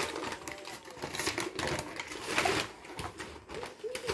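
Quick, irregular light clicks and taps with some rustling from a child's hand rummaging among snack packets in a cardboard box.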